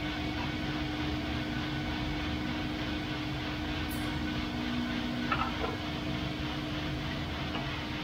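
Loring 15k Falcon coffee roaster running mid-roast: a steady hum with a constant tone, the drum turning the beans. About five seconds in there is a short squeak that falls in pitch.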